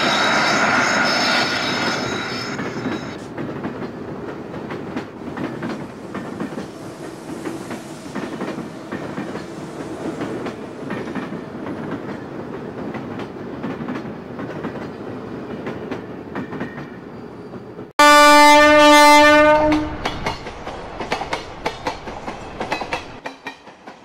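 Train running past with its wheels clicking steadily over rail joints. A horn fades out in the first few seconds, and a loud horn blast of about two seconds cuts in suddenly near the end, after which the clicking dies away.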